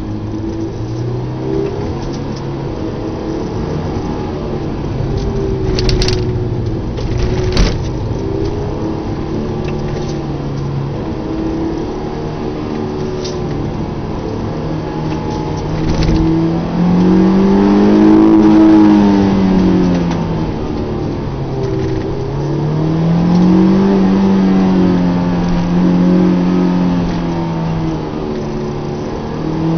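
Car engine heard from inside the cabin, pulling through the bends: steady at first, then revving up and easing off several times in the second half. A few sharp knocks stand out, the loudest about seven seconds in.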